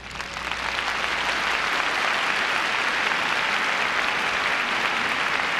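Large arena audience applauding as the skating music ends, the clapping swelling over the first second or so into steady, dense applause.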